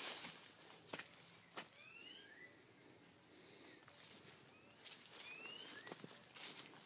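Footsteps swishing and rustling through long grass and undergrowth. They fade in the middle and pick up again near the end. A bird gives a few short rising chirps twice, a couple of seconds apart.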